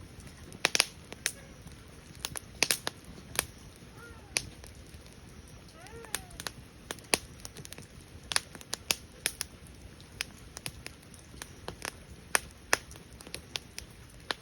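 Burning lacquer-tree firewood crackling, with sharp irregular pops and snaps scattered throughout, a few of them much louder than the rest.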